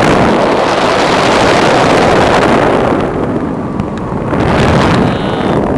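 Loud wind buffeting the microphone of a camera held out in the airflow during a tandem paraglider flight. It eases a little a bit after three seconds, then picks up again.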